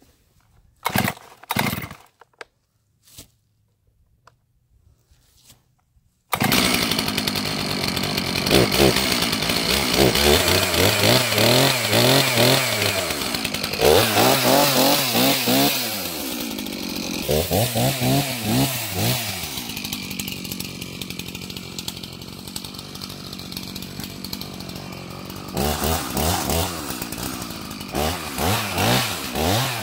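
New Stihl MS391 two-stroke chainsaw: a few handling knocks in near quiet, then the saw cuts in loudly about six seconds in. It is revved up and let back down to idle several times, idles for a few seconds, then revs again near the end.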